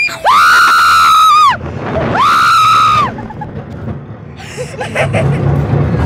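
A rider on a fast, high amusement-park ride screaming in fright: two long, high-pitched screams about a second each, the first the longer, followed by quieter rushing noise.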